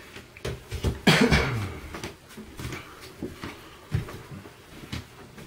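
Scattered knocks and rustles of handling and movement, with one louder thud about a second in that leaves a brief falling low tone.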